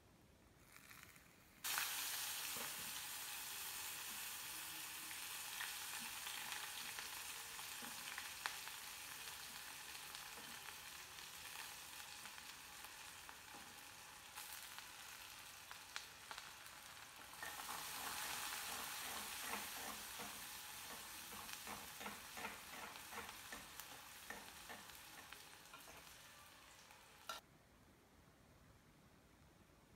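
Chopped onions hitting hot oil in a metal kadai and sizzling, starting suddenly about two seconds in. From about halfway, a spatula stirs and scrapes in the pan over the sizzle, with many short ticks. The sizzle drops away near the end.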